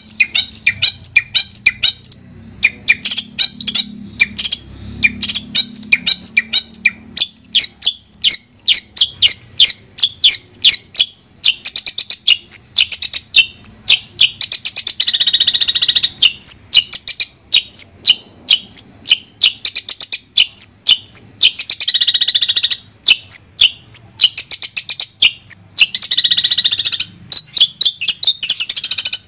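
Long-tailed shrike (cendet) song: a fast, unbroken stream of high chirps and trills, breaking three times into denser, harsher scratchy passages.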